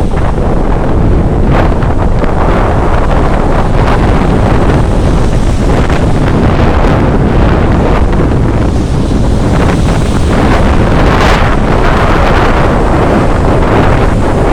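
Strong wind buffeting the microphone over rough sea surf breaking on the shore, with a few brief louder surges.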